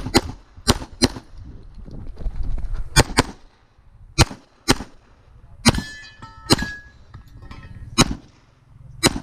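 Competition pistol shots fired in quick pairs and singles, about a dozen in all with short pauses between strings as the shooter moves between targets. A ringing clang follows a shot a little past halfway, a hit on a steel target.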